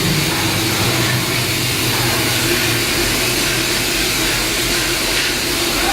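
Steady mechanical hum with a broad hiss from running shipyard machinery, unchanging throughout.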